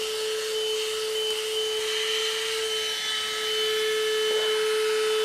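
Tusa cordless handheld car vacuum cleaner running steadily as it vacuums dust off the car's floor: a constant motor whine with a rush of air.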